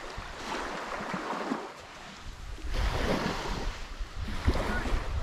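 Small waves washing onto a sandy beach, with wind buffeting the microphone; the wind rumble gets louder a little over halfway through.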